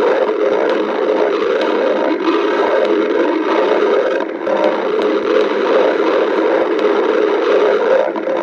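A hungry stomach growling, a continuous rumbling gurgle that dips briefly about halfway through.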